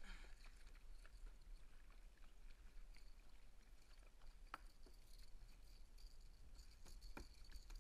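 Faint splashing of a hooked Spanish mackerel thrashing at the surface beside a kayak, with a couple of light clicks; otherwise near silence.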